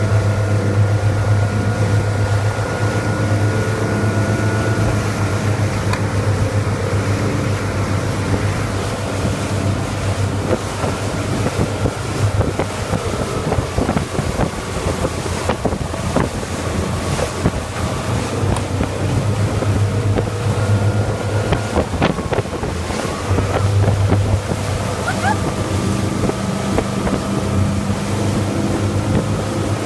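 Motorboat engine running steadily under way while towing, its pitch easing down a little midway and coming back up, over the rushing of the wake and wind buffeting the microphone.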